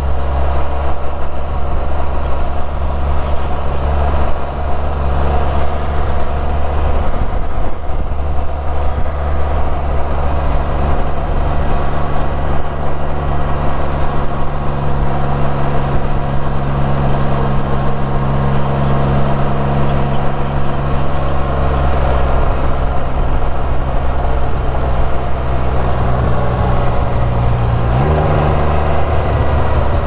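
Can-Am Spyder three-wheeler's engine running steadily at a low town speed. About two seconds before the end the engine note rises as it picks up speed.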